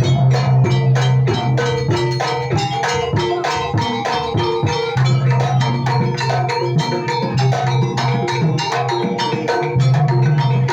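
Gandrung-style gamelan dance music: fast, dense percussion strikes on drums and tuned metal instruments over a deep held tone that drops out for a while and comes back.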